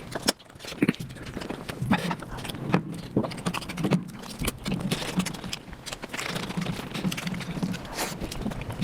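Mukbang eating sounds of mutton nalli sped up to about five times normal speed: a quick, dense run of chewing and mouth clicks and smacks.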